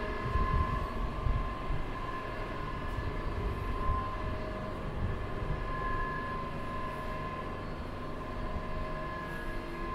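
Metro train rumbling, with a few steady whining tones above a low, uneven rumble, heard on an underground platform.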